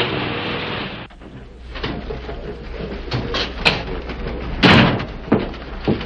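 A car driving off, its engine and road noise fading over the first second. Then footsteps on a hard floor and a door shutting with a bang about two-thirds of the way through, followed by a few more knocks.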